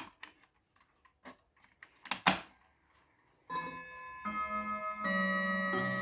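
Mantel clocks ticking with scattered clicks, then about three and a half seconds in a mantel clock starts its chime for the hour, a new note struck about every 0.8 s and each left ringing over the last.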